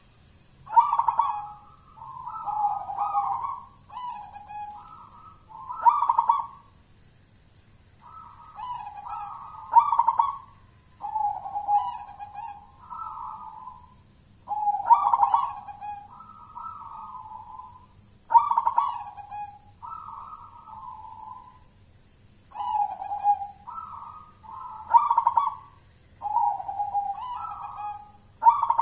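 Zebra dove (perkutut) singing its cooing song in a thick voice: phrase after phrase every few seconds, each opening with a sharp, loud note followed by a few rolling coos.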